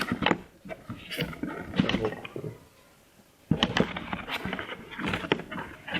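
Irregular clicks, knocks and rustling from a small boxed police-style siren unit and its packaging being handled and unpacked, with a short pause about halfway through. The siren itself is not sounding.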